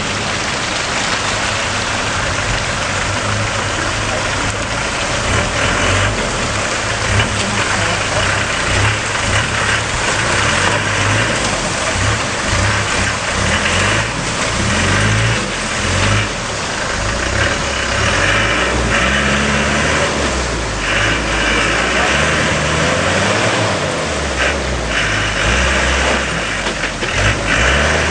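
Land Rover Defender's engine working at low speed off-road, its revs rising and falling over and over as it crawls through a rocky ditch.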